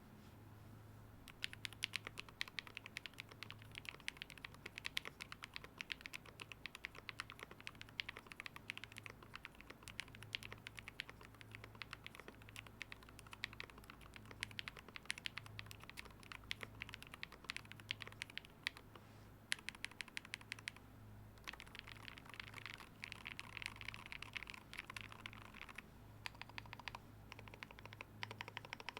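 Typing on a Wooting 60HE V2 keyboard in a KBDfans Holy60 case, with lubed Gateron Jade Sakura magnetic switches and cherry-profile keycaps: a steady, fast stream of key presses that starts about a second and a half in, with a couple of short pauses past the middle.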